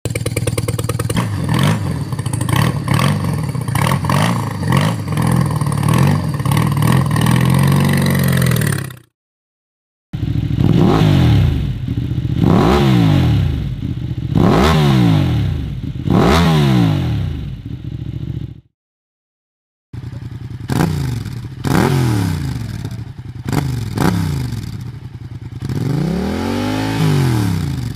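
Three twin-cylinder motorcycle engines heard one after another, each revved up and down in repeated blips: a boxer twin, then a V-twin, then an inline twin. The clips are split by two short silent gaps, about nine and eighteen seconds in, and each stops abruptly.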